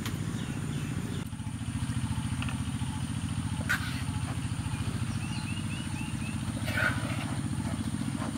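A small engine running steadily in the background, a low drone with a fast even pulse. A bird chirps a short run of quick notes near the middle, and a metal spoon clinks against a clay bowl twice.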